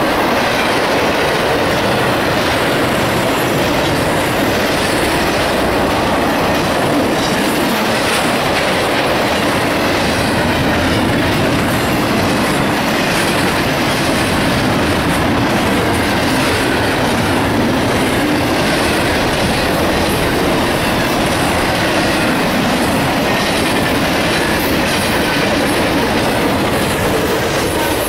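CSX intermodal freight train passing at speed: a steady, loud rolling noise of steel wheels on rail as container-laden well cars go by.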